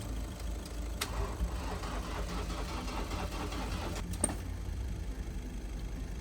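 Car engine idling steadily, running as the donor car in a jump start of a van with a flat battery. Two sharp clicks, about a second in and about four seconds in.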